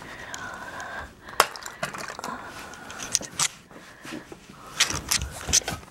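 Handling noise as a handheld camera is carried and things on a makeup vanity are moved: a string of sharp clicks and knocks, the loudest about a second and a half in and a cluster near the end, over light rustling.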